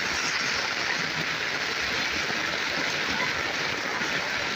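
Heavy rain pouring onto a flooded street, a steady even hiss with no breaks.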